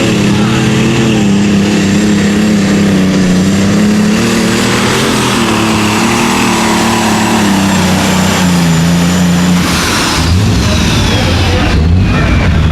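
Light super stock pulling tractor's turbocharged diesel engine running flat out under load. About ten seconds in the engine note breaks off as the throttle comes off, and a high whine falls away over the next couple of seconds.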